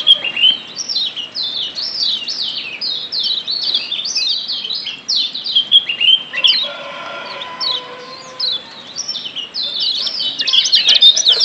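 Lombok yellow white-eyes (kecial kuning) chirping rapidly: a dense, unbroken run of short, high, falling 'ciak' notes that grows busier near the end.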